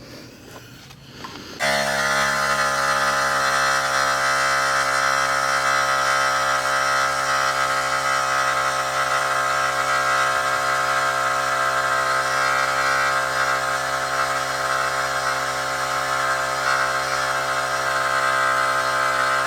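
A mini 12-volt emergency air compressor running under load as it inflates a motorcycle tire. It gives a loud, steady electric-motor buzz that starts about two seconds in and holds without letup.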